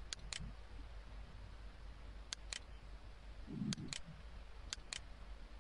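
Computer mouse clicking: four pairs of sharp clicks, the two of each pair a fraction of a second apart, with a soft low thud about three and a half seconds in, over a faint steady low hum.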